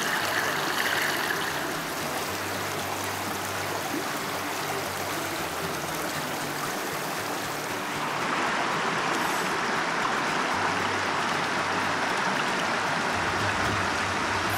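River water rushing steadily over rocks in a shallow riffle. Its tone shifts slightly about eight seconds in.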